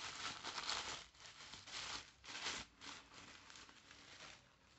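Brown paper wrapping being crumpled and pulled off a small perfume bottle by hand: irregular crinkling, busiest in the first second, then a few separate rustles that die away a little before the end.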